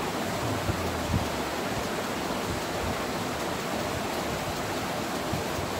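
Steady hiss of background noise with no clear tones, broken by a couple of soft low thumps about a second in.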